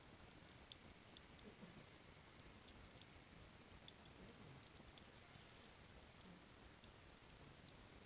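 Softwood campfire burning low, with faint, irregular crackles and sharp little pops scattered through the quiet.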